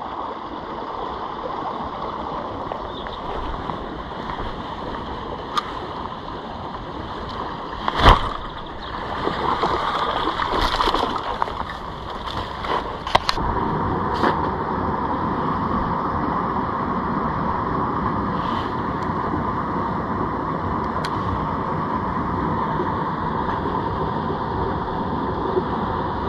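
Steady rush of flowing stream water, a little louder from about halfway on, with a few knocks and clicks; the loudest is a thump about eight seconds in.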